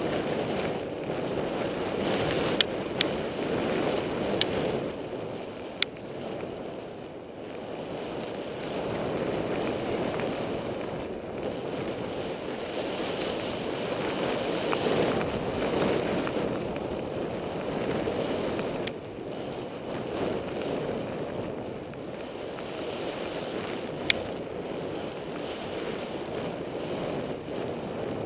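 Vectorglide Butterknife skis running through deep fresh powder: a steady rushing noise of snow and wind that swells and eases through the turns, with a few sharp clicks.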